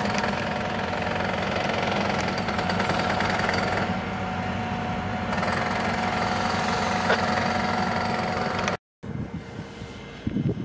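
Diesel locomotive running close by: a steady engine drone with a fast rattle under it. About nine seconds in the sound cuts off abruptly, and a quieter rumble follows.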